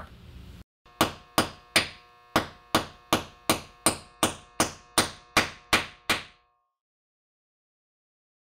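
Claw hammer striking the pin of a Gyford pin-drive concrete anchor in a concrete block wall: about fourteen sharp, ringing metal-on-metal blows, roughly three a second. The pin is being driven in to spread the anchor's fingers and lock it in the hole. The blows stop about six seconds in.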